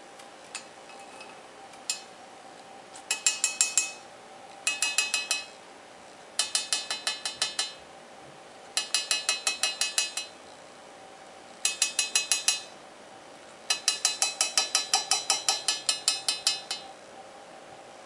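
Indian ringneck parakeet rapidly tapping its beak against a stainless steel jug: metallic clinking in six quick runs of about seven taps a second, after two single clicks near the start.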